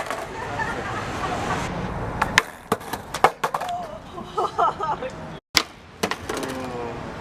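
Skateboard wheels rolling on pavement, followed by a series of sharp clacks of the board hitting the ground as tricks are popped and landed.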